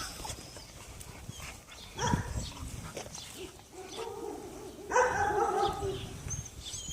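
A dog vocalizing: a short call about two seconds in, then a longer drawn-out call from about five seconds in.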